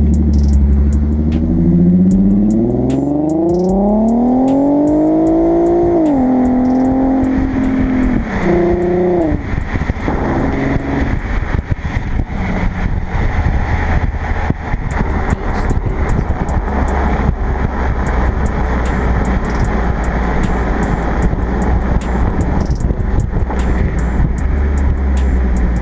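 Infiniti Q50 Hybrid's V6 heard at the tip of an aftermarket axle-back exhaust, accelerating with a steadily rising pitch. About six seconds in the pitch drops suddenly at a gear change, climbs again briefly, and then settles into an even rush of noise with a low steady drone as the car cruises.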